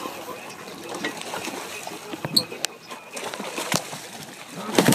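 A hooked fish splashing and thrashing at the water's surface beside a boat as it is reeled in, with a few sharp knocks, the loudest near the end.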